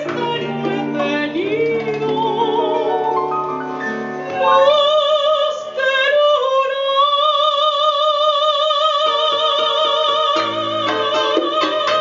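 Soprano singing live with acoustic guitar accompaniment. About four and a half seconds in she takes up a long high note with wide vibrato and holds it, with one brief break, over the guitar.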